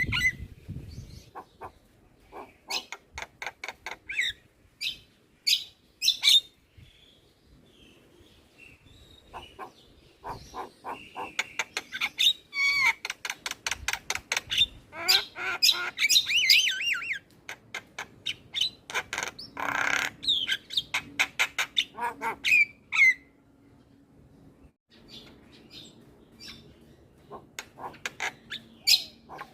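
Javan myna (jalak kebo) chattering almost without pause: fast rattling clicks, harsh squawks and whistled sliding notes, going quieter twice for a couple of seconds.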